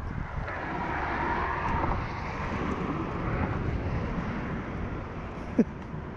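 Wind buffeting the microphone over a steady rushing noise like road traffic from the nearby bridge, as a storm comes in. A brief rising squeak cuts through about five and a half seconds in.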